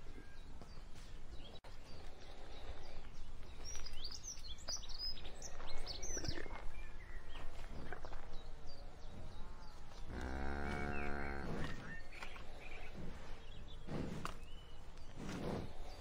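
Field recording of cows at pasture. Scattered bird chirps sound in the first half over a low outdoor rumble, and one cow moos for nearly two seconds around the middle. Short noisy rustling bursts follow near the end.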